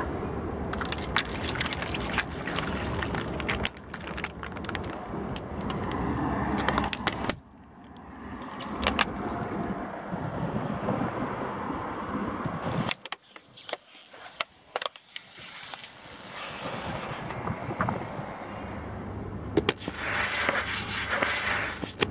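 A car tyre rolling slowly over objects on asphalt and crushing them: thin plastic cups of liquid crackling and bursting, then a plastic carton of eggs cracking, then a squeeze tube being flattened. The run is made of separate clips, so the sound changes abruptly a few times, with the car's engine running low underneath.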